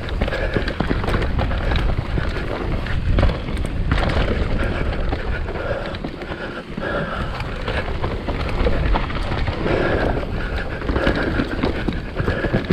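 Mountain bike descending a rough trail: a continuous low rumble of tyres and frame over dirt and rock, with frequent knocks and rattles from the bike and wind buffeting the microphone.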